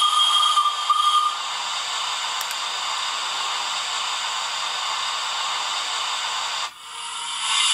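Sound decoder of a model BR 10 steam locomotive playing a two-tone steam whistle that ends about a second in, followed by steady steam hiss. The hiss cuts out briefly near the end and comes back louder.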